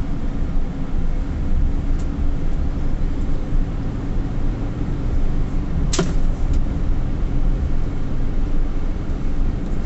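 Steady low road and engine rumble of a car driving in city traffic, heard from inside the cabin, with a single sharp click about six seconds in.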